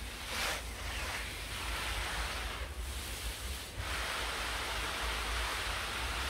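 Wind gusting outdoors, a rushing hiss that swells and fades in surges, with low rumble from wind buffeting the microphone.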